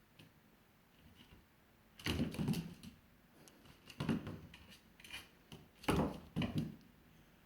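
Scuffling and clicking from a dog and a cat tussling on a hard floor, paws and claws scrabbling in three short bouts about two, four and six seconds in.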